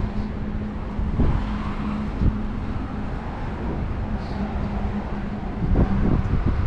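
Road traffic on a bridge: a steady wash of cars running past, with a low engine hum underneath.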